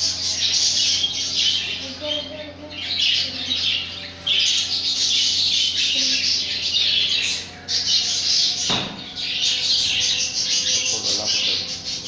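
A flock of caged budgerigars chattering and squawking without a break. A single sharp knock comes about three-quarters of the way through.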